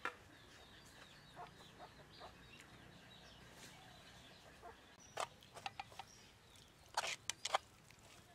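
Eating by hand: sharp wet smacking and chewing clicks, a few about five seconds in and a louder cluster near seven seconds, over faint bird chirping.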